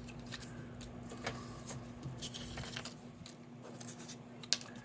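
Soft rustling and light clicks of card-stock paper pieces being handled and shuffled through on a craft table, with one sharper tap near the end, over a steady low hum.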